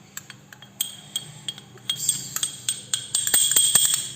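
Spoon stirring cake batter in a mug, clinking against its sides. The clinks are scattered at first, then come quicker and louder in the second half as the stirring speeds up.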